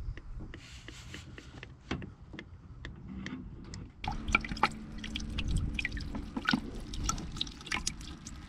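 Fluid draining from the car and dripping into liquid below, many small drops plinking and trickling. The dripping gets busier about four seconds in, and a low steady hum joins it.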